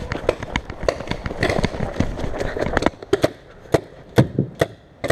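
Running footsteps and rustling over the forest floor, then a string of sharp, irregular pops from shooting-game guns being fired.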